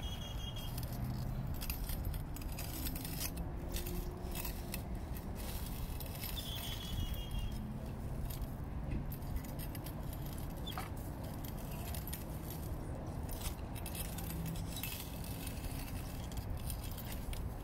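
Metal ride-on sand digger worked through sand: irregular clinks and rattles from its pivots and scoop, with sand scraping and spilling.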